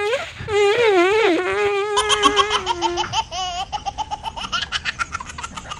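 High-pitched laughter, with wavering pitch for the first two seconds. After an abrupt change about two seconds in, it becomes a quick run of repeated ha-ha pulses that grows fainter near the end.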